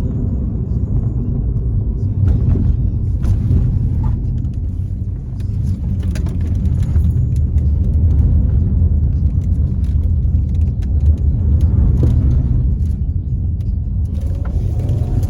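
Turbocharged Volkswagen Jetta cruising, a steady low engine and road rumble with a few brief, sharp hissy bursts scattered through it.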